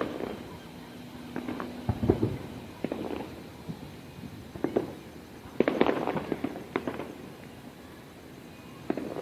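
Fireworks display: aerial shells bursting in a series of sharp bangs and crackles at irregular intervals, with a dense burst of crackling about six seconds in.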